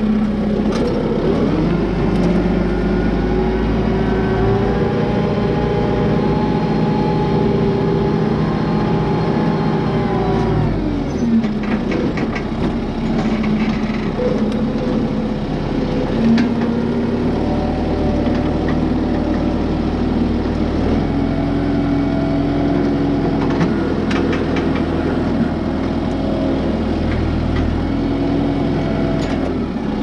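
Kubota M6060 tractor's four-cylinder diesel engine running steadily while pulling a rear grading blade through dirt. Its pitch drops about ten seconds in and comes back up a few seconds later, with a few light knocks along the way.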